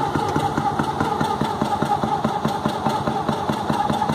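Austro Engine AE50R single-rotor Wankel engine running roughly at low power just after starting, with an uneven pulsing beat. It shakes and vibrates because a stuck apex seal has cost it compression.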